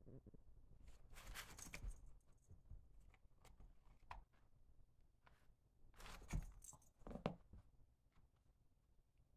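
Faint scratching and rustling of a folded-cardboard scratcher toy as a kitten paws and claws at it. It comes in short bouts, about a second in and again around six to seven seconds in.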